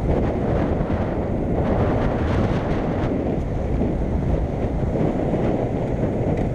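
Wind buffeting the microphone of a camera on a moving small motorcycle, a dense steady rumble that buries the bike's engine and tyre noise.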